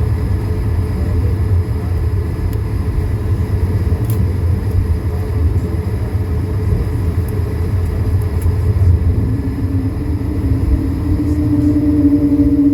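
Cabin noise of an Airbus A220-300 taxiing, its Pratt & Whitney PW1500G geared turbofan engines at taxi power: a steady low rumble with faint steady whining tones above it. A humming tone comes in about nine seconds in and grows louder toward the end.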